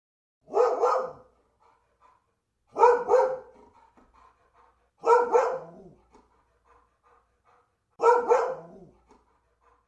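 Dog barking: four quick double barks spaced a couple of seconds apart.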